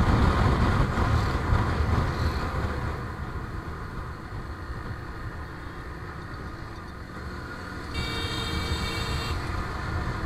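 Motorcycle riding noise, a low rumble of engine and wind, heavier for the first few seconds and then easing off. About eight seconds in, a vehicle horn sounds once for just over a second.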